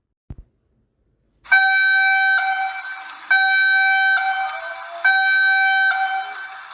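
Emergency alert alarm: a horn-like tone at one steady pitch, sounding in repeated blasts about every two seconds, each starting loud and fading. It begins about a second and a half in, after near silence and a faint click.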